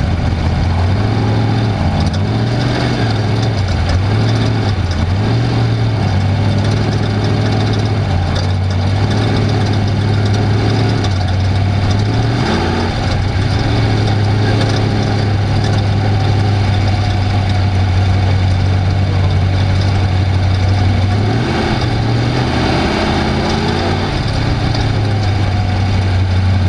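Off-road race vehicle's engine running hard. Its pitch rises and falls repeatedly with the throttle for the first dozen seconds, holds steady for a long stretch, then dips and rises again briefly near the end, over a constant noisy rush.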